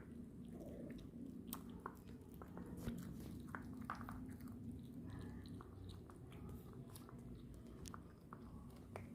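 Persian cats chewing food, making faint, irregular crunchy clicks over a low steady hum.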